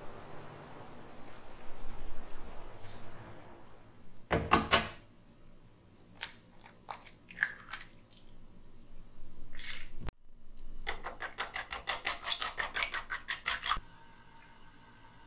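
Raw eggs being beaten in a stainless steel bowl: a quick, even run of light clicks, about seven a second, for about three seconds, after a loud knock and a few scattered taps. It opens with a faint outdoor hiss and a steady high insect drone.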